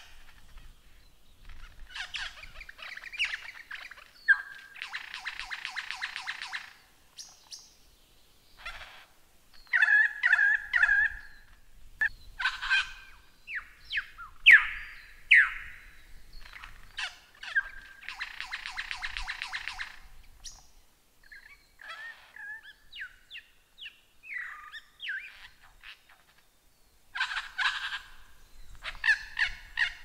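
Lyrebird singing a varied, fast-changing song of clear whistles, sharp chipping notes and falling sweeps, broken by two long buzzing rattles of about two seconds each, the first near the start and the second past the middle.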